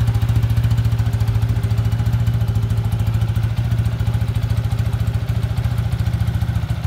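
Yamaha FZ150i single-cylinder four-stroke engine, freshly overhauled with a 63 mm big-bore block and an NLK Superhead, idling steadily with a fast, even exhaust pulse.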